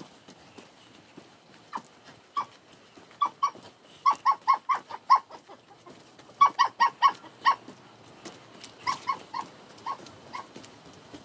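A dog yapping in quick runs of short, high yelps, several a second, with pauses between the runs.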